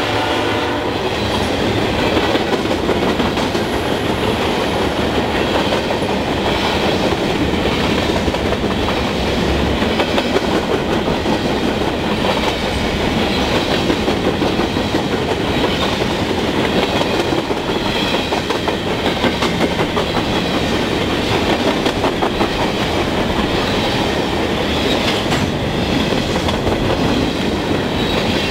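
A freight train of covered hopper cars rolling past close by, a loud, steady rumble with the wheels clicking over the rail joints. The tail of the locomotive's horn cuts off within the first second.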